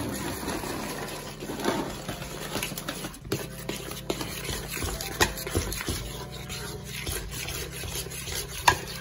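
A spoon stirring thick praline candy and pecans in a stainless steel pot, scraping and clicking against the metal over and over, with a sharper clack near the end.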